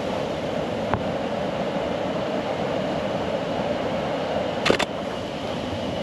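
Steady rush of water from a waterfall. A faint click comes about a second in and a sharper double click near five seconds.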